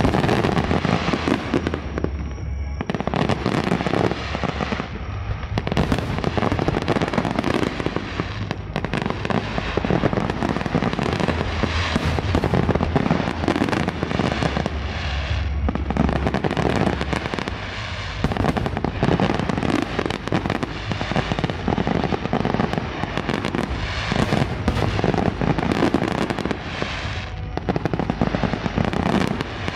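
A continuous barrage of aerial firework shells bursting, many overlapping bangs and crackles with no pause, the deep booms heaviest in the middle of the stretch.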